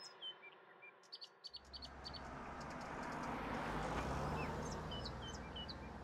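Small birds chirping in short, scattered calls over a soft rushing background that swells and then fades. A few light clicks come about a second in.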